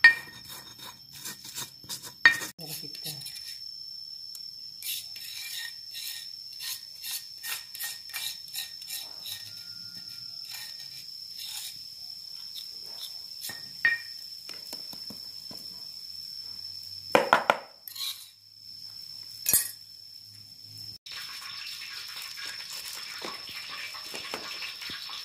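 Kitchen handling noises: scattered clicks and knocks of a stone pestle on a stone mortar with garlic and salt, then of cassava pieces in a metal bowl, with a louder clatter of knocks a little after the middle. A faint steady high whine runs underneath, and an even hiss comes in about four seconds before the end.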